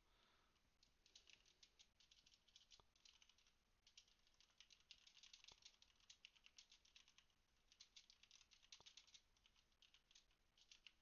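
Very faint, rapid clicking of typing on a computer keyboard, coming in bursts with short pauses, over near silence.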